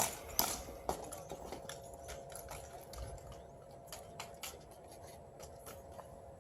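Drill rifles being spun, caught and slapped during an exhibition rifle-spinning routine: irregular sharp clicks and knocks of hands and rifle stocks, the loudest about half a second in, then fainter scattered clicks.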